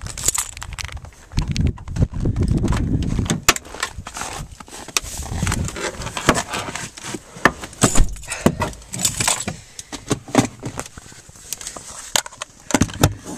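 Car keys jangling and clicking as the door of a 2006 Scion tC is unlocked and opened, with many sharp clicks and knocks of the door and of someone getting in.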